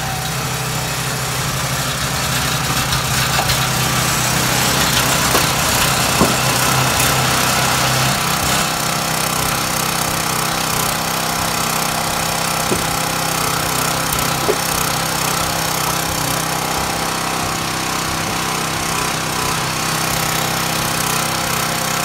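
Small gas engine of a CountyLine log splitter running steadily; its note shifts about eight seconds in. Two brief knocks come in the middle.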